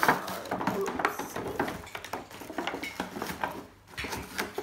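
Stiff clear plastic doll packaging and its cardboard box crinkling and rattling as they are handled and pulled apart, with irregular crackles and taps.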